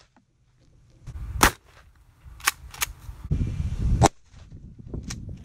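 Shots from a 12-gauge shotgun: one loud blast about a second and a half in, then four fainter sharp cracks over the next few seconds.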